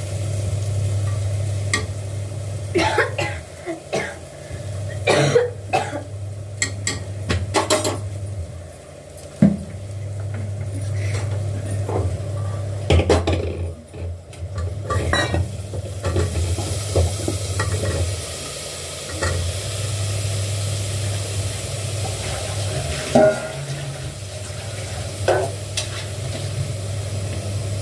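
Hands mixing and kneading atta dough in a bowl: rubbing, scraping and scattered clicks against the bowl, over a steady low hum.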